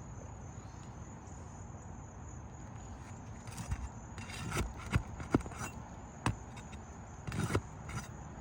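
Hammer and flat bar working at an asphalt roof shingle to pry it and its nails loose: about halfway through, a string of sharp, uneven knocks and scrapes begins. A steady high insect chirring runs underneath.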